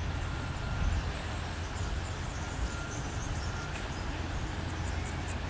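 Steady low rumble of a distant LDH diesel-hydraulic locomotive approaching, with short high bird chirps over it.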